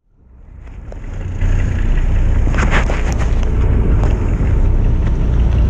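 Low, steady rumble of a fishing boat's engine, fading in over the first second and a half, with a few sharp clicks about halfway through.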